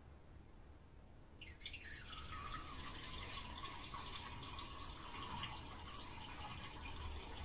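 Kitten urinating into a toilet-training bowl: a faint trickling stream of liquid that starts about one and a half seconds in and keeps running.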